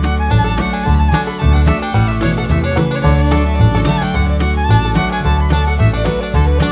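Background music: an upbeat fiddle tune with guitar and a steady bass beat, in a bluegrass/country style.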